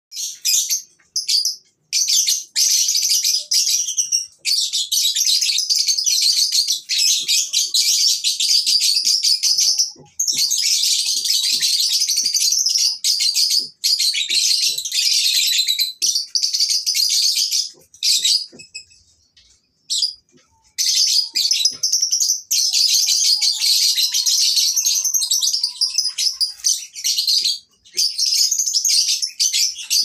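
Caged Fischer's lovebirds chattering in long, rapid, shrill trills that run for several seconds at a stretch with short breaks, and a lull of about two seconds past the middle.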